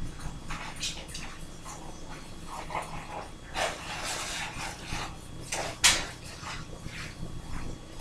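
A utensil scraping and clicking against a skillet in irregular strokes as noodles and eggs are stirred, with one sharper knock about six seconds in, over a low steady hum.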